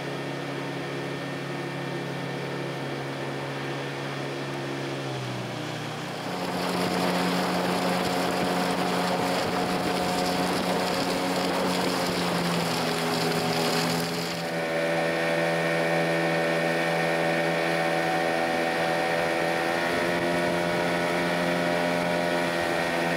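Boat's outboard motor running, speeding up about five or six seconds in and then holding a steady higher speed. A rushing noise rides over it for several seconds after the speed-up.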